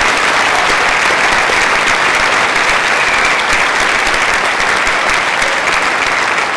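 Audience applauding loudly, a dense steady clatter of many hands clapping.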